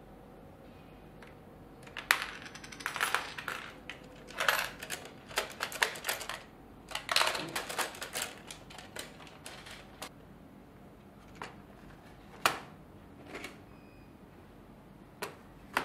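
Battery-operated panda coin bank at work: bursts of rapid plastic clicking and rattling, with coins clinking, for several seconds, then a few single clicks.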